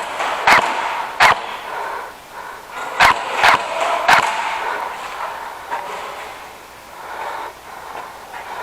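Airsoft gun firing single shots: five sharp cracks at uneven gaps in the first half, then quieter.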